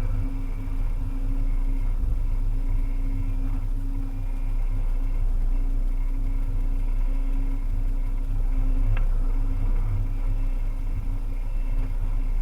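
Volvo EC300E excavator's diesel engine running steadily, a constant low drone with a faint click about nine seconds in.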